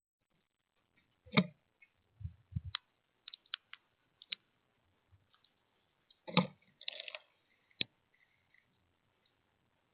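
Scattered sharp clicks and taps of birds at a feeder, pecking and landing, with two louder knocks about a second and a half in and again about six seconds in.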